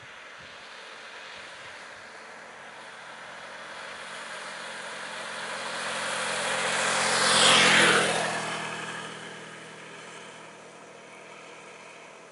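A road vehicle passes close by. Its tyre and engine noise grows louder, peaks a little past the middle with a brief drop in pitch as it goes by, then fades away.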